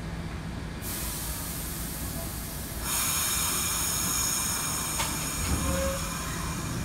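R68 subway train starting to pull out of the station. A hiss starts about a second in, then about three seconds in it gets louder with a high squeal made of several steady tones as the cars begin to roll.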